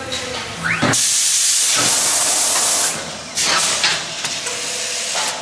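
Compressed-air hiss from the pneumatics of an automatic CNC machine for aluminium profiles: a loud hiss of about two seconds starting about a second in, then a shorter one about half a second after it ends. A short rising whine comes just before the first hiss.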